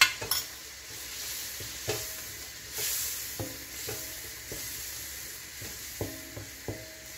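Chicken pieces sizzling in butter and oil in a wok while being browned and stirred with a wooden spoon. Scattered light knocks and scrapes of the spoon against the pan.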